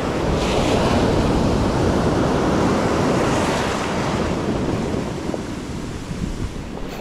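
Ocean surf washing up and around the feet in the shore break, with wind buffeting the microphone. The wash is strongest in the first few seconds and slowly eases off near the end.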